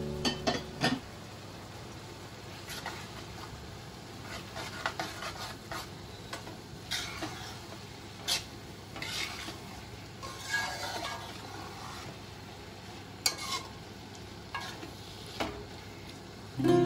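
A metal spoon stirring and scraping minced meat around a metal pan, giving irregular scrapes and clinks over a faint sizzle of frying.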